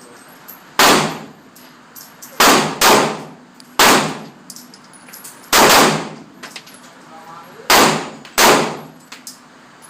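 Ruger LC9 9mm compact pistol fired seven times at an uneven pace, each shot a sharp crack with a brief echoing tail; two pairs of shots come close together.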